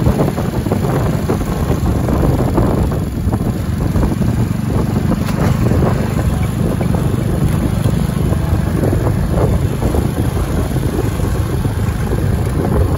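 Motorcycle engine running steadily during a ride, with wind buffeting the microphone and frequent rattles and knocks from a rough, broken road.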